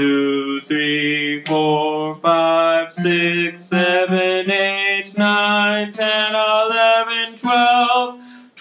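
A man singing a slow rising chromatic scale to acoustic guitar: about twelve held notes, each a step higher than the last, climbing roughly an octave.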